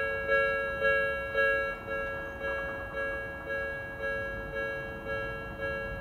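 Japanese railway level-crossing warning bell ringing steadily, a ding just under twice a second, each ring fading before the next; it sounds while the barriers are down, warning of an approaching train.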